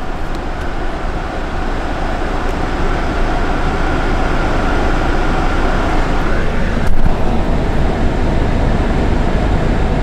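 Steady rush of air-conditioning air from a Kia Carnival's dashboard vent, getting louder as the microphone moves up close to the vent. A single knock about seven seconds in.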